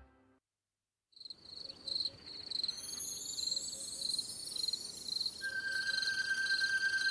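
Crickets chirping as a night-time ambience, fading in after about a second of silence as a quick, evenly pulsing high trill. A second steady tone joins about five seconds in.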